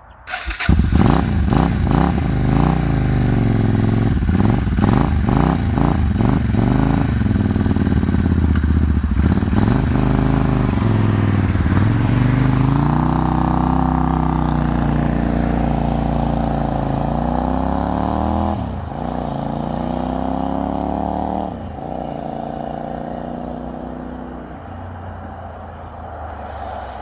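2001 Suzuki VZ800 Marauder's V-twin engine revved several times with the bike standing, then pulling away and accelerating, its pitch dropping twice at gear changes, and fading as the bike rides off.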